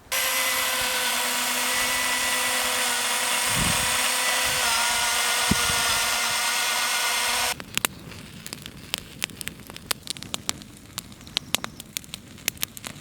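Power ice auger drilling through lake ice, running at a steady pitch for about seven and a half seconds and then stopping abruptly. After that there is a quieter scatter of sharp ticks and crackles.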